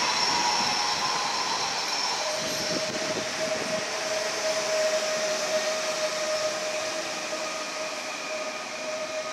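Pesa Elf electric multiple unit slowing as it pulls into a station platform: steady running and rolling noise that slowly fades. A steady electric whine sets in about two seconds in and holds on.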